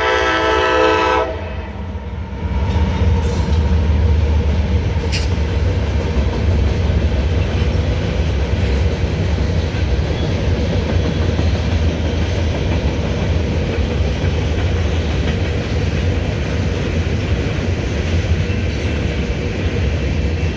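A diesel locomotive's multi-chime air horn sounds a chord that cuts off about a second in. A freight train then rolls by with a steady low rumble and wheel noise on the rails, and one sharp clank about five seconds in.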